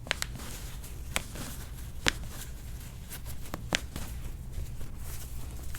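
Hands-on foot mobilisation during a chiropractic session: soft rustling with about six short, sharp clicks scattered through it, the loudest about two seconds in.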